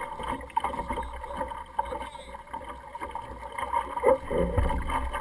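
Optimist sailing dinghy under way: water sloshing against the hull and wind rumbling on the microphone, with scattered knocks from the boat, one louder about four seconds in.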